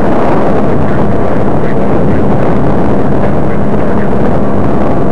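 Rotax 503 two-stroke twin-cylinder engine of a Sabre ultralight trike running steadily and loud while the trike taxis on the ground.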